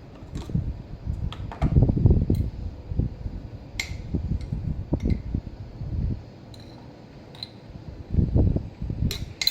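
Kitchen handling sounds while red chilli powder is spooned onto chicken in a yogurt marinade: a spoon clinks sharply against the bowl a few times, with dull knocks and rustles in between.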